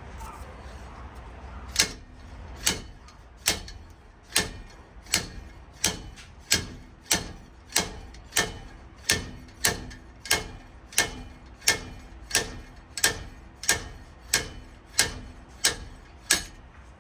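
Slide hammer on a bearing puller striking repeatedly, about twenty sharp metal clacks a little over one a second, starting about two seconds in. It is working the old rear wheel bearing out of a Toyota FJ40's axle housing.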